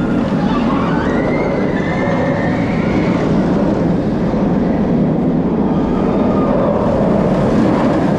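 Roller coaster train rumbling along its steel track in a loud, steady run, with a few high gliding squeals in the first three seconds.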